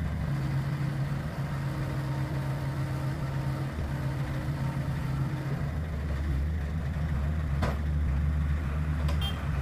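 Truck engine running steadily, with a deeper hum coming up about six seconds in and a single sharp click near the end.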